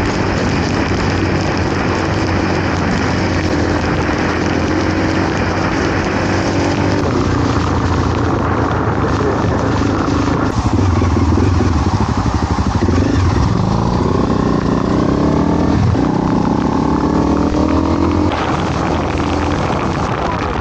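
Motorcycle engine running on the road under a dense hiss of heavy rain and wind. Its pitch rises and drops in steps through gear changes in the second half.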